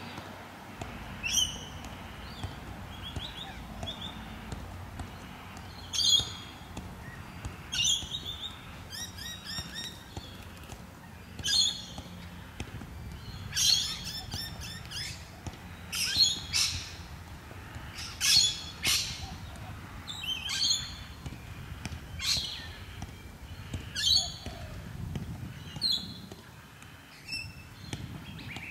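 Birds calling outdoors: short, harsh high calls repeated every second or two, over a steady low background noise.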